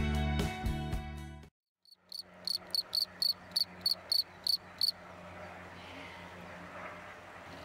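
Background guitar music fading out in the first second and a half, then a male field cricket (Gryllus campestris) calling by rubbing its forewings together: about ten short, high chirps at roughly three a second, stopping about five seconds in.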